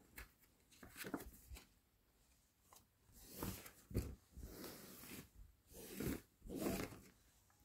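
Faint rustling and scraping of paper cards and knitted fabric being handled, in several short rustles.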